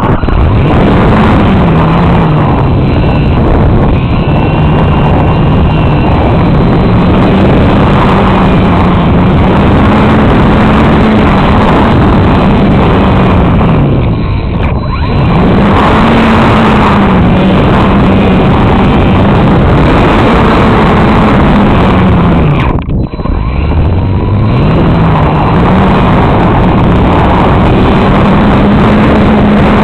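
Small electric RC glider in flight heard from an onboard camera: wind rushing over the microphone, with the motor and propeller running and their pitch slowly rising and falling with throttle. The motor sound drops away briefly twice, about 15 and 23 seconds in, then picks up again.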